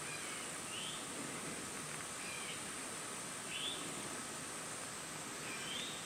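Steady high insect chorus, with a bird's short rising call repeating about every second and a half.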